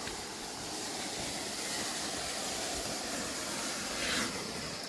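Loud, steady rushing of flowing water at a mountain water source, with a slightly louder burst of splashing about four seconds in.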